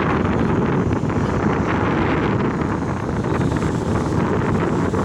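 Steady rush of wind noise buffeting the microphone of a rider moving along the road.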